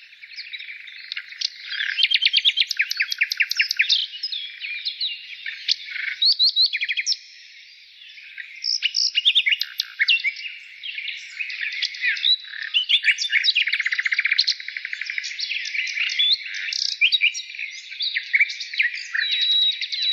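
Birds chirping, with rapid trills and quick overlapping calls, and a brief lull about seven seconds in.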